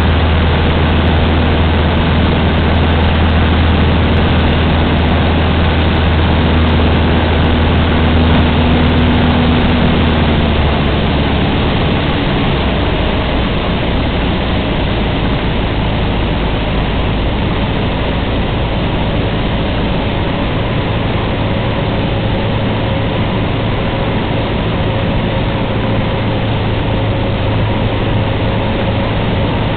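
Cessna 150's four-cylinder Continental O-200 engine and propeller running steadily, heard loud inside the cockpit. About ten seconds in, the engine note changes and the sound becomes a little quieter.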